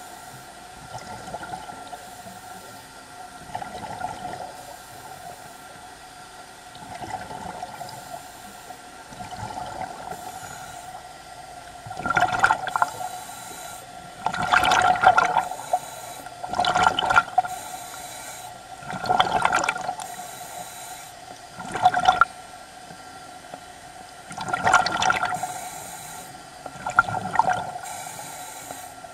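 Diver's breathing regulator underwater: a rush of exhaust bubbles with each breath out, about every two and a half seconds, faint at first and louder from about twelve seconds in. A steady hum runs underneath.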